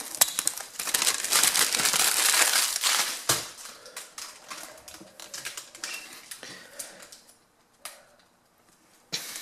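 Hands handling the plastic-bodied laptop: rustling and crinkling with many light plastic clicks, dense at first, then thinning to scattered clicks and fading about three quarters of the way through.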